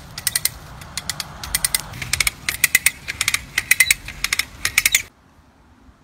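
Ratcheting pulley of a rope come-along clicking in quick runs, one run for each haul as the pull rope is drawn tight. The clicking stops abruptly about five seconds in.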